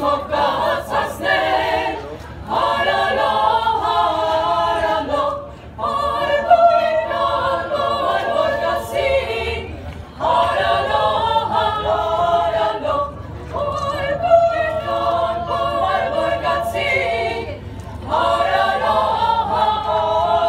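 School choir of mostly girls' voices singing a cappella, in phrases a few seconds long with brief pauses for breath between them.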